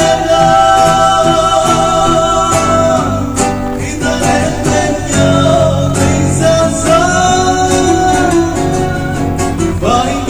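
A man singing a slow Vietnamese pop ballad to two acoustic guitars, holding two long notes, one near the start and one past the middle.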